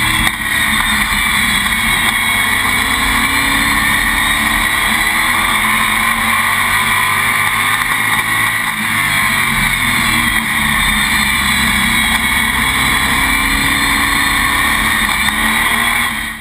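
Sportsman stock car's engine running at racing speed, heard from inside the cockpit, its pitch rising and falling through the lap. The sound cuts off suddenly at the end.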